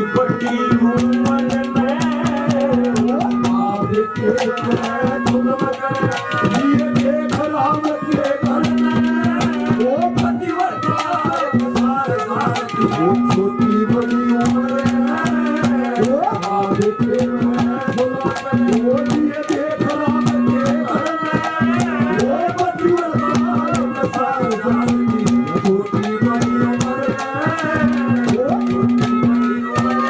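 Live Haryanvi ragni: a man's singing voice over a folk band with fast, dense hand-drum strokes, rattling percussion and a steady held note that drops in and out.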